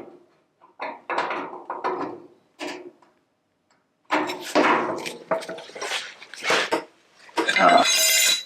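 Sheet metal and tools clattering and knocking on a workbench as a small steel panel is handled and worked, in irregular bursts, with a harsher metal-on-metal scrape for about a second near the end.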